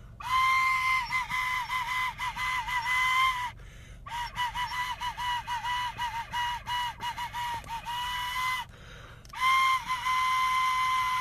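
Plastic recorder played in three short phrases: quick repeated tongued notes at much the same pitch, each phrase ending on a held note, with the last phrase one long held note.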